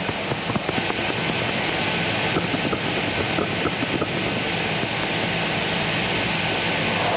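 Vacuum cleaner running, a steady rushing drone that gets louder over the first second and then holds, with light quick ticks during the first few seconds.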